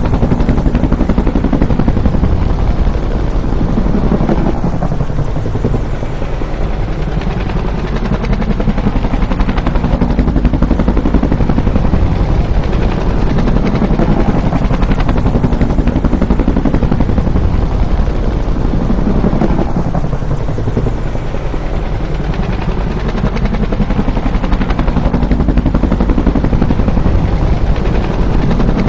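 Bell UH-1 "Huey" helicopter's rotor and turbine engine running loud and continuous, with a low pounding underneath and slow sweeps in tone that come back every several seconds.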